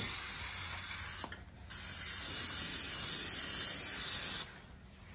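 Aerosol cooking-spray can hissing in two sprays: the first stops about a second in, and after a short pause a longer spray of about three seconds follows.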